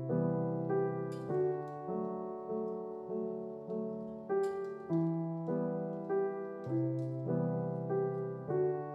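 Background solo piano music: a gentle melody moving at an even, unhurried pace.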